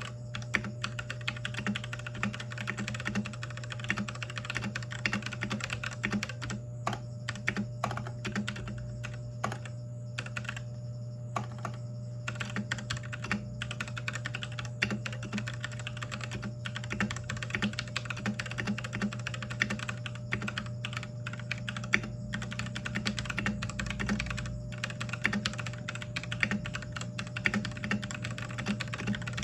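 Continuous fast typing on a Royal Kludge RK61 Pro mechanical keyboard, its keys clacky, over a steady low hum.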